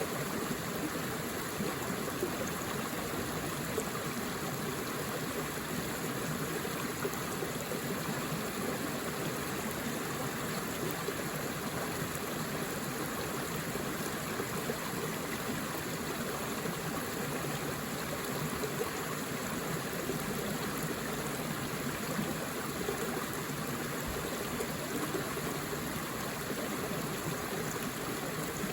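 Forest stream flowing steadily over rocks, an even rush of water with a light trickle and gurgle.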